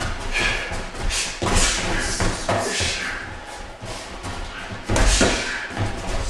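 Gloved punches and kicks thudding on boxing gloves and padded shin guards during light kickboxing sparring: a string of separate sharp impacts, the loudest about five seconds in, with echo from a small hard-walled room.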